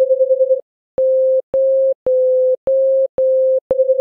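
Synthesized sine-wave tones lying very close together in pitch. Played together they make one tone that pulses rapidly with beating, which stops about half a second in; then five short pure tones, each a little higher or lower than the last, sound one after another; near the end all of them sound together again and the pulsing returns.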